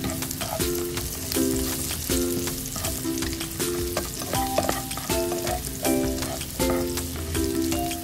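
Pork belly and chopped garlic sizzling in hot oil in a frying pan as they are stirred, with a steady hiss and frequent spattering crackles. Background music of repeating low notes plays underneath.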